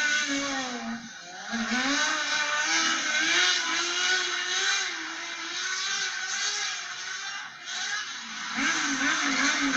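Drift car's engine held at high revs, its pitch wavering up and down with the throttle as the car slides, over a loud hiss of noise; the level drops briefly about a second in and again near the end.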